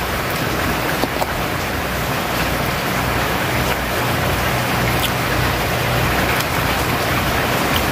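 Steady, loud background hiss with a low hum underneath and a few faint clicks.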